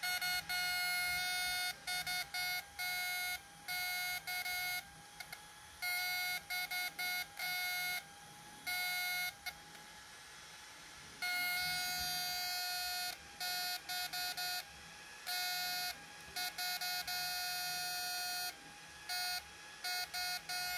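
Homemade MOSFET electrofishing inverter whining at a steady high pitch while driving a 1000-watt halogen bulb as a test load. The whine cuts in and out irregularly, in stretches from a fraction of a second to about two seconds.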